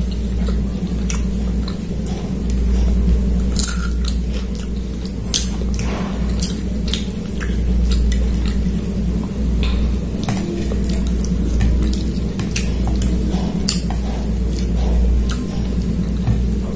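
Close-miked hand-eating sounds: chewing, wet squishing of fingers pulling meat from a curried chicken drumstick, and scattered clicks of fingers and bones on the plate, over a steady low hum.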